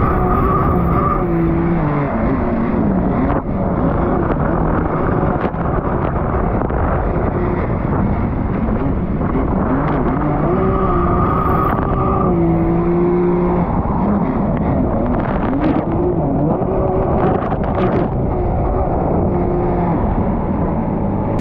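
2021 Yamaha Superjet's four-stroke three-cylinder engine running through a Riva straight-pipe exhaust, its pitch rising and falling again and again as the throttle is worked on and off during riding.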